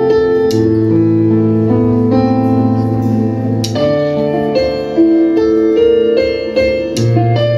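Instrumental keyboard music: slow, held chords changing every second or so, with a sharp crash-like hit three times.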